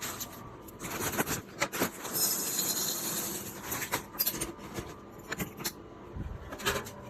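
Items being handled and set down during a restock: a string of small knocks and clicks, with a brief rustle about two seconds in.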